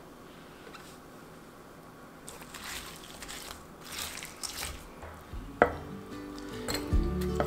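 Soft kitchen preparation sounds of liquid and wet ingredients being handled, with small crackles and a sharp click about five and a half seconds in. Background music comes in near the end.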